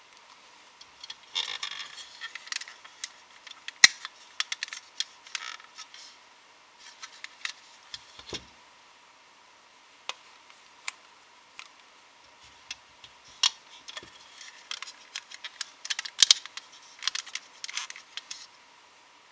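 Rubber loom bands being stretched and slipped onto the pegs of a plastic loom: scattered small clicks, taps and rustles of rubber on plastic. The clicks bunch together near the end as the loom itself is handled. A faint steady thin tone runs underneath.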